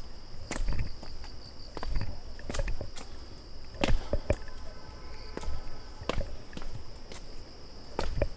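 Footsteps of a hiker walking on a trail, steady knocks at about two a second, over a steady high drone of insects.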